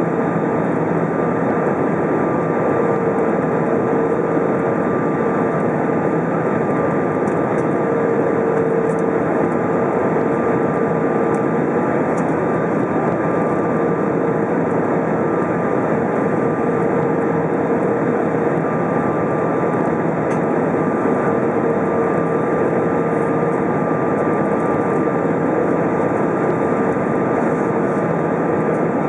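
Steady cabin noise inside an Airbus A320 descending on approach, heard by the window over the wing: jet engines and rushing air, with a steady hum and a fainter, higher tone over the rush.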